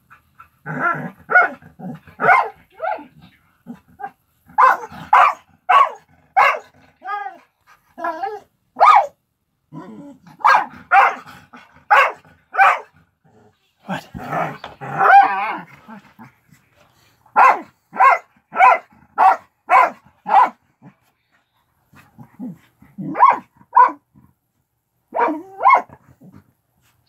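A dog barking in play, in runs of quick barks with short pauses between runs, and one longer unbroken stretch about halfway through.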